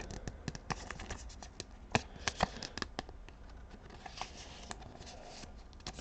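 Pokémon trading cards being handled: a run of small clicks and taps as cards slide and knock against each other, with a few sharper snaps about two to three seconds in.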